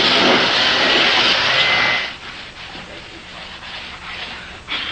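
Electric power sander running loudly on the wooden hull of a small boat, then switched off about two seconds in.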